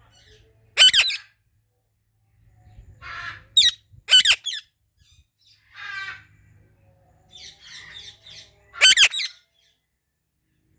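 Indian ringneck parrot calling: four loud, high, short squawks, with quieter raspy chatter between them.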